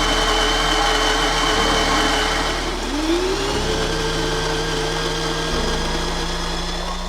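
Electric flat-burr coffee grinder running with a steady whine, cutting out briefly and spinning back up about three seconds in.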